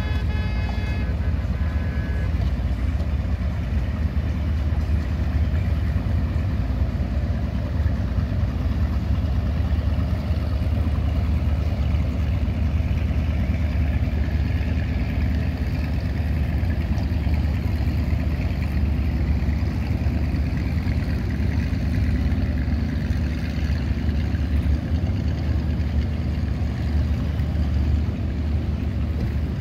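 Motorboat engines running steadily, a low drone under wind and water noise. A held horn tone sounds at the start and ends about two seconds in.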